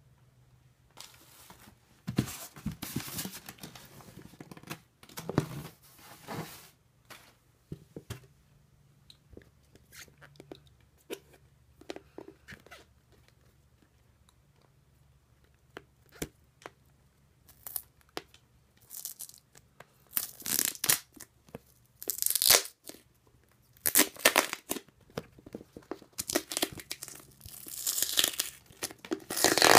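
Packaging being handled: a tape-wrapped plastic case shifted in and lifted out of a styrofoam shipping box. It comes as irregular short bursts of rustling, scraping and crinkling, busiest and loudest near the end.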